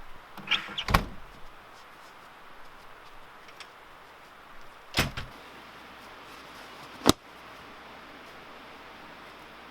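A few knocks and thumps: a cluster about a second in, a heavier thud around five seconds, and one sharp knock a little after seven seconds.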